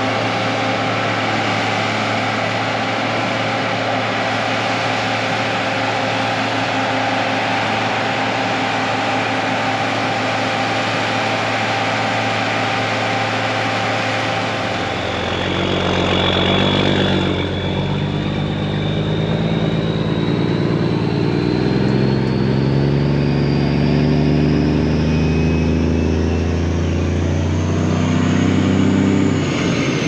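Heavy farm machinery engine running steadily. About halfway through the sound changes to a deeper, uneven engine note, with a thin high whine that slowly rises near the end.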